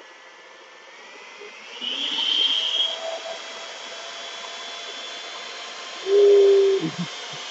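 Hamilton Beach hand mixer's motor running with its two beaters spinning, a steady whine that steps up in pitch and gets louder about two seconds in. Near the end a much louder buzz lasts under a second as a hand is held against the spinning beaters.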